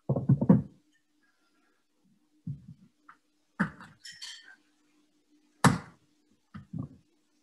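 Ice cream scoop scraping and knocking in a plastic tub of frozen homemade ice cream, with some crinkling of the aluminium foil that covers it. The knocks are separate and come about a second apart, and one sharp knock about three-quarters through is the loudest.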